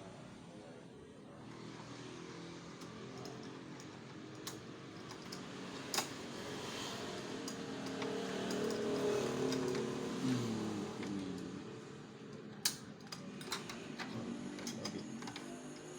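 An engine running steadily, its pitch shifting and gliding up and down, loudest a little past the middle. A few sharp clicks and knocks from handling hard parts sound over it, the strongest about six seconds in and again near the end.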